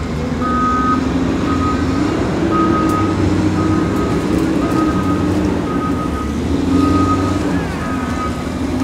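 A vehicle's reversing alarm beeping about once a second, each beep short and at one pitch, over the steady running of its engine.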